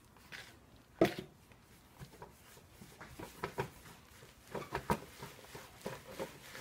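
Hands mixing blended banana and sugar into flour in a bowl: irregular wet squishing with a sharper knock about a second in.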